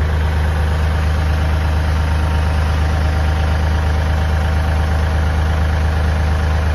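Kioti compact tractor's diesel engine running steadily at idle, with a constant low hum and no change in speed.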